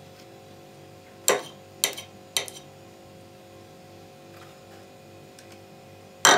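Sharp clinks of kitchenware: three about half a second apart a second or so in, and a louder one near the end, over a steady low hum.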